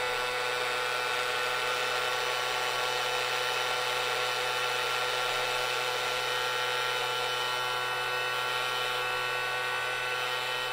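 Casdon toy Dyson cordless vacuum's small electric motor and fan running at a steady pitch, a whine made of several tones.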